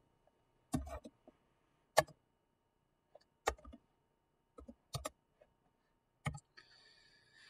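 Sparse single clicks of a computer keyboard and mouse during typing into a web search box, about six clicks spaced roughly a second apart.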